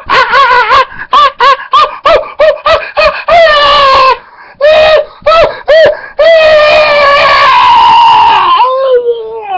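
A man's voice loudly chanting in a high, nasal sing-song: quick short syllables at about three or four a second, then long wailing held notes partway through and again near the end, closing with a falling slide in pitch.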